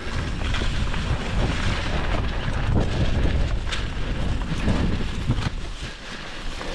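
Wind rushing over the microphone of a moving mountain bike, with the rumble of tyres rolling over a leaf-covered dirt trail.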